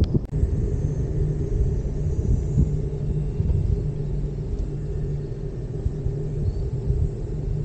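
A cable-car gondola of the Gozaisho Ropeway riding along its cable: a steady low rumble with an even hum running under it.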